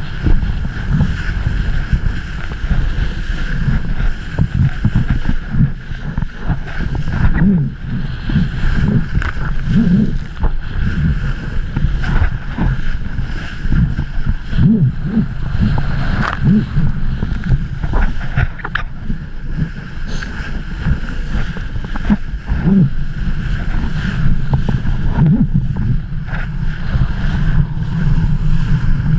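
Strong wind buffeting an action camera's microphone in a constant low rumble while a kiteboarder rides fast over choppy water, with scattered sharp splashes of spray and chop hitting near the camera.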